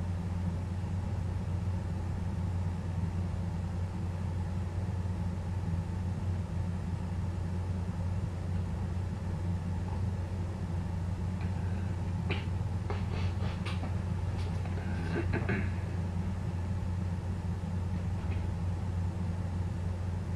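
A steady low hum, with a cluster of small clicks and scratches about twelve to sixteen seconds in as a wood mouse scrabbles in through the feeder box's entrance hole.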